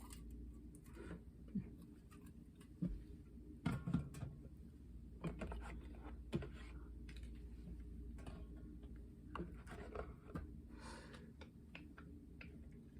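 Quiet scattered clicks and light knocks of objects being handled, a few louder taps among them, with a brief hiss near the end.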